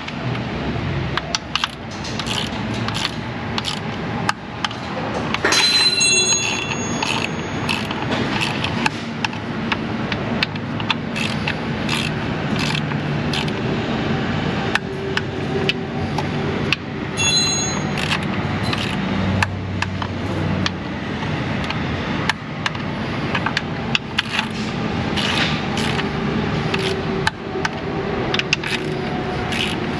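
A ratchet clicking and tools scraping and tapping on metal as intake manifold bolts are run down and torqued, with two brief high metallic rings.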